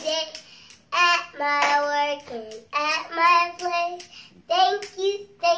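A young child singing a children's song in a high voice, line by line with short breaks between the phrases.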